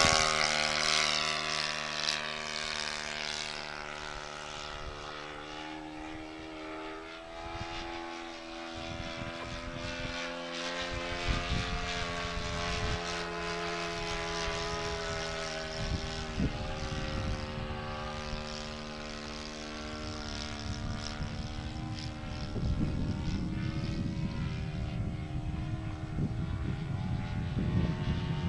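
Saito FA-72 single-cylinder four-stroke glow engine of an RC model Corsair in flight, its drone dropping in pitch as the plane moves away just after a pass, then holding a steady note that rises and falls slightly. The freshly rebuilt engine is still being broken in and running a little rich. A low rumbling noise joins near the end.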